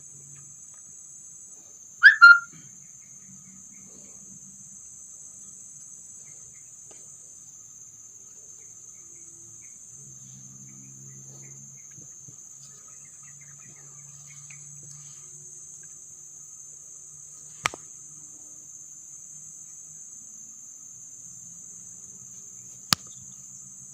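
Steady high-pitched chirring of crickets, with one loud short high call about two seconds in and two sharp clicks later on.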